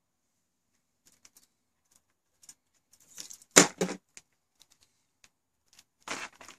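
Coiled cables being handled: scattered clicks and a rustle of cable against cable. A sharp clatter of knocks comes about halfway through, and another rustling knock near the end as a coil of TV antenna coax is taken hold of.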